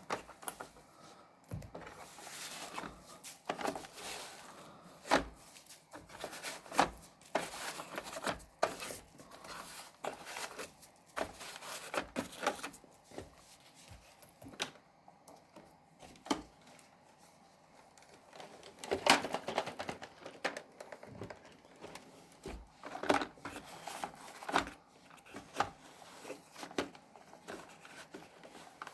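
Paper confetti crinkling and ticking in irregular bursts as a Roomba 980 robot vacuum sweeps through it.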